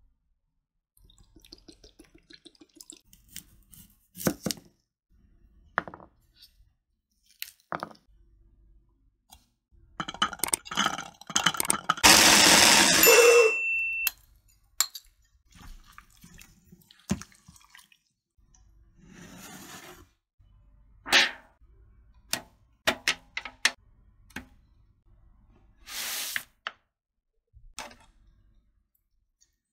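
Marinade being mixed in a stainless steel bowl: a spoon clinking and tapping on the metal, and liquid poured into the bowl for several seconds about ten seconds in, the loudest part, likely the soy sauce for the marinade. Scattered clicks and knocks follow, ending with tongs on a foil baking tray.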